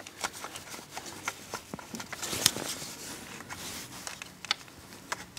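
Scattered small clicks and rustles of plastic wiring-loom connectors being handled and pushed toward the glow plugs by gloved hands, with a sharper click about two and a half seconds in.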